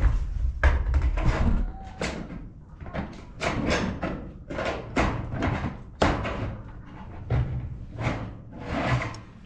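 Hand tin snips cutting the galvanized steel ridge cap: a series of short, sharp metallic cuts, about one or two a second.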